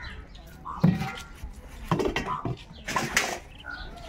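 Metal clinks and clatter: the metal pans and chains of a hand-held beam balance being handled, with several sharp knocks.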